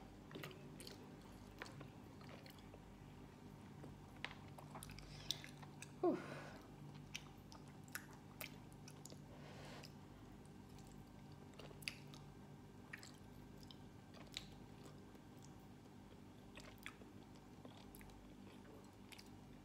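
A person chewing and biting pork adobo and sweet potato close to the microphone, heard as scattered small mouth clicks and smacks throughout. A faint steady hum runs underneath.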